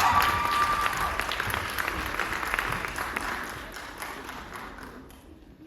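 Audience applauding, the clapping growing quieter and dying away about five seconds in.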